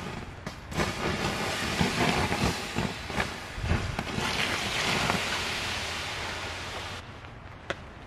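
Glowing campfire embers crackling and popping under a steady hiss of rain. The hiss swells and then drops off suddenly near the end.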